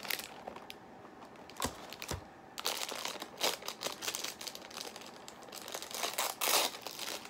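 A small wrapper around a Disney Doorables mini figure being torn open and crumpled by hand: irregular crinkling and rustling with a couple of sharp clicks, and louder bursts of crinkling a few seconds in and again near the end.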